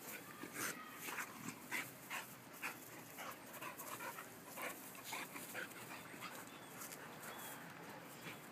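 Two dogs play-fighting, with a quick run of short yips and panting that thins out over the last couple of seconds.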